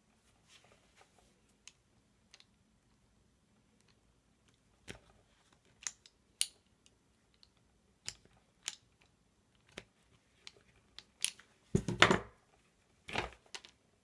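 DANIU self-adjusting automatic wire stripper clicking and snapping as its handles are squeezed to grip and strip insulation from the cable's cores. Scattered sharp clicks, with the loudest crunching snaps near the end.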